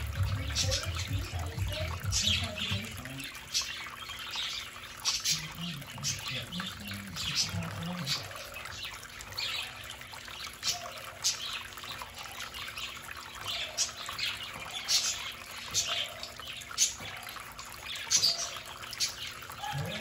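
Budgies chirping in short, repeated high calls over the steady trickle of a small tabletop fountain's water splashing into its bowl. A low hum fades out about three seconds in.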